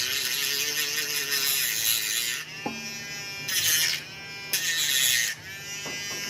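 Small high-speed electric rotary tool running with a steady high whine, grinding on carbon fiber in three loud passes: a long one, then two short ones around the middle.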